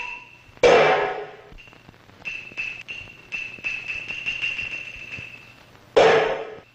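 Cantonese opera percussion: a loud crash about half a second in that rings away over a second, then light quick taps under a thin, steady high tone, and a second crash near the end.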